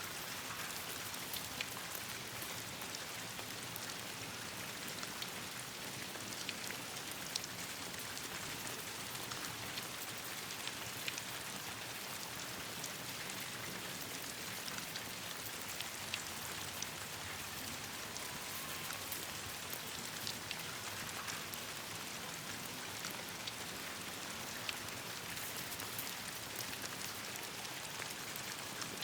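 Steady rain falling on leaves and branches with a campfire crackling: an even hiss dotted with scattered sharp ticks and pops.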